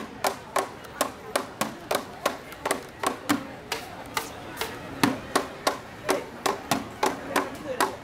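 Plastic buckets beaten by hand as drums, about three sharp hits a second in a steady rhythm.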